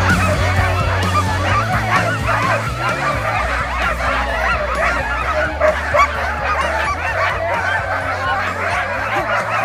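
Many sled dogs barking at once in a dense, continuous chorus, excited and eager to start running.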